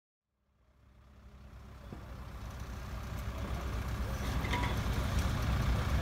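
Diesel engine of a Dieci telehandler running steadily, a low rumble that fades in from silence, with a few light clicks about four and a half seconds in.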